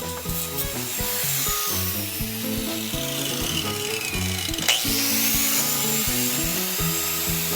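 Background music with a bass-and-synth line stepping from note to note. A sweep falls slowly high up, and after a sharp click about two-thirds of the way through a second sweep rises.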